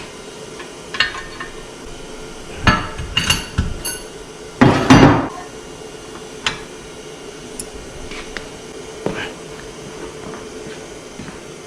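Metal clanks and clinks from work on a Suzuki DF115A outboard's gear case parts. Irregular knocks come singly and in short clusters, the loudest cluster about five seconds in, over a faint steady hum.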